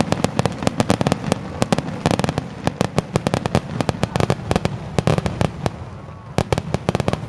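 Fireworks display going off overhead: a rapid, continuous barrage of sharp bangs and crackles, many reports a second, over a low rumbling boom.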